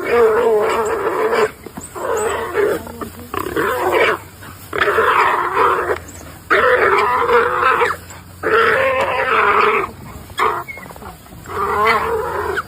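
Pig squealing in distress as dogs attack it: a series of loud, harsh squeals, each lasting about a second, with short gaps between them.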